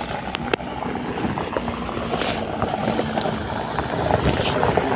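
A vehicle's steady running noise, a low rumble with a faint engine hum and a few light clicks.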